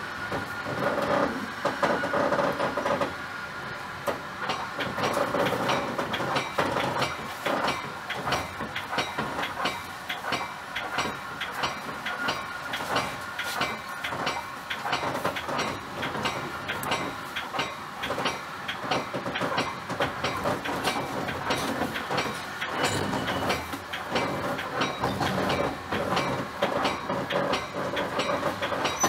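Metra commuter train running along the track, heard from inside the car: a steady rumble with a quick run of wheel clicks over rail joints and switches.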